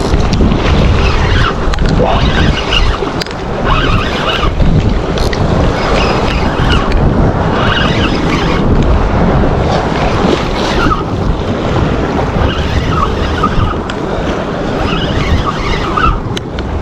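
Wind buffeting the microphone, heavy and unbroken, over the wash of sea water against the jetty rocks.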